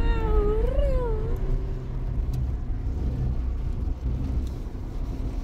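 A young child's high, drawn-out wordless call that wavers and ends in a quick rise and fall about a second in, over the steady low rumble of a car driving, heard inside the cabin. After the call only the car's road and engine noise remains.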